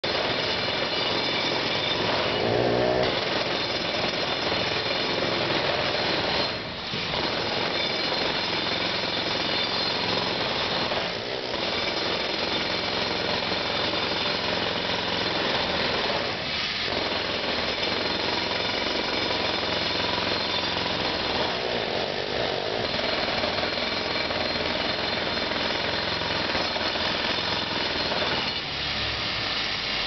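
Loud jackhammer hammering on a swimming pool that is being repaired, running continuously with brief let-ups every five or six seconds.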